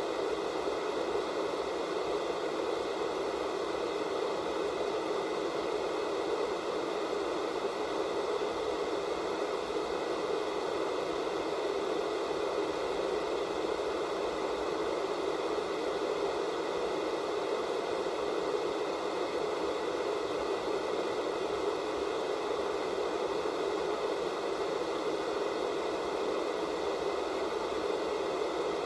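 Analog television static from a set with no signal: a steady hiss, strongest in the middle range, with faint steady high tones running through it.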